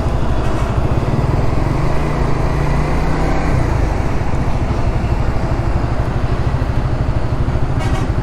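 Motorcycle engine running under way, a steady pulsing note whose pitch climbs slightly a couple of seconds in, with road and wind noise.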